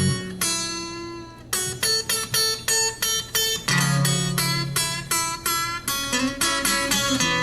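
Capoed acoustic guitar playing a fingerpicked blues introduction. A chord rings out and fades, then single plucked notes follow at about three a second over low bass notes.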